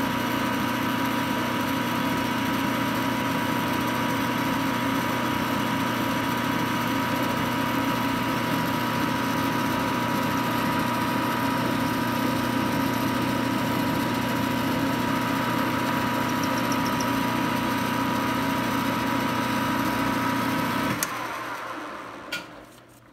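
Metal lathe running under power while turning the square end of a small steel bar round in a four-jaw chuck: a steady machine whine with the cutting noise. About two seconds before the end a click comes and the lathe winds down to a stop.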